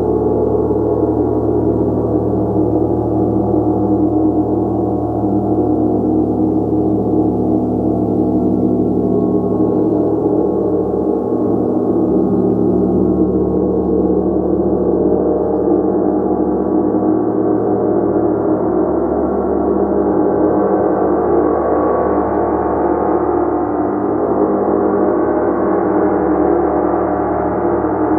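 A gong played continuously, a dense steady wash of many overlapping ringing tones with no single strike standing out. It grows brighter in the second half.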